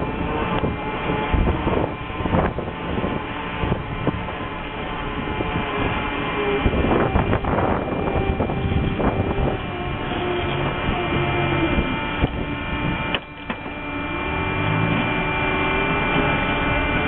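Steady mechanical running noise from the ship, with wind buffeting the microphone and occasional knocks, as a lifeboat is lowered down the hull and reaches the water.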